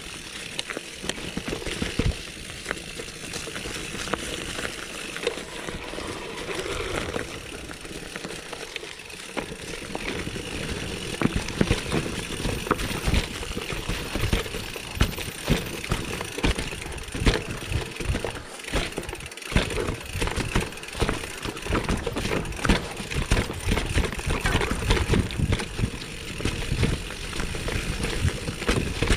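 Mountain bike rolling fast down a rough dirt forest trail, tyres on dirt and stones with many sharp knocks and rattles from the bike over bumps and roots. The knocking grows louder and more frequent from about ten seconds in.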